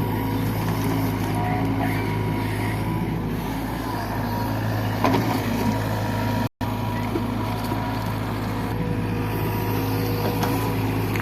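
JCB 3DX backhoe loader's diesel engine running steadily under work, with a few faint knocks and scrapes about five seconds in.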